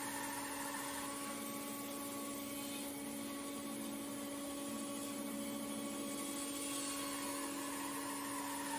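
Laguna 14BX bandsaw running with a carbide-tipped blade, milling a sycamore log as it is fed through the cut: a steady motor hum over an even noise from the blade in the wood.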